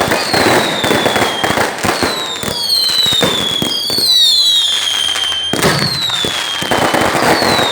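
Fireworks going off in a dense, rapid crackle, with repeated high whistles that each fall in pitch, several overlapping near the middle.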